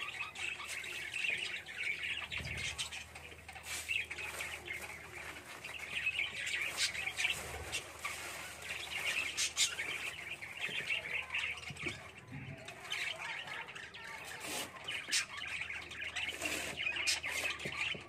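A cage of lovebirds chirping and chattering continuously, with many sharp ticks among the calls. A few soft knocks come as a hand works inside the wire cage.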